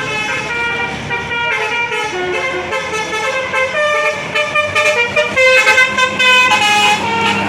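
Telolet horn on a Basuri bus, a multi-tone musical horn, playing a quick tune of stepped notes that grows louder in the second half.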